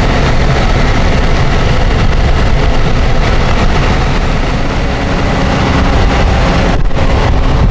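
Chevrolet Silverado pickup truck pulling up and coming to a stop with its engine running, a steady low rumble.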